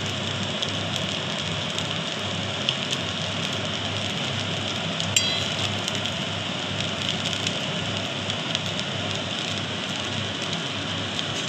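Noodles and vegetables sizzling steadily in an oiled steel wok as a metal spatula tosses and mixes them, with a sharp clink of the spatula against the pan about five seconds in.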